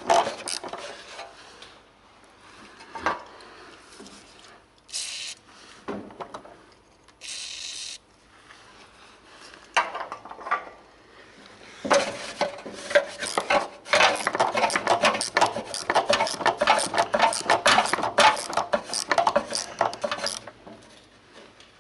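Hand tools working a rusty bolt under a car: a ratchet with a deep 13 mm socket unbolting the handbrake cable adjuster. Scattered metal clinks and two short hisses come first, then from about halfway a long run of fast metallic clicking and scraping.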